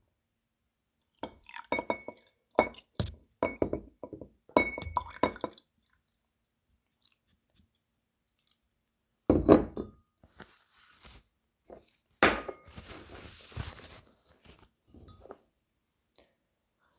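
Glass bottle being handled: a run of small clinks and taps with a short ringing note in the first few seconds, then two louder knocks, the second followed by a brief hiss.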